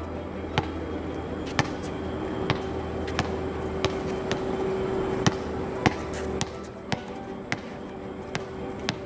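Basketball bouncing on an outdoor hard court: a string of single sharp bounces, roughly one a second, over a steady hum.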